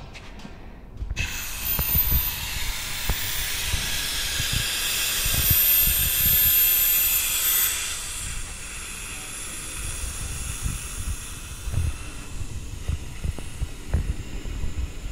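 Air hissing through the valve fitting on the lid of a stainless-steel vacuum tumbler drum. It starts suddenly about a second in, stays loud for several seconds, then tapers off and carries on more faintly as the pressure across the valve evens out.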